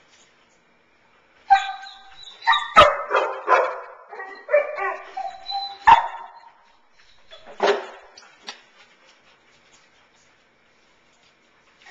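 A dog barking and whining in a burst of about five seconds, with two sharp knocks among the calls, then one more bark a little later.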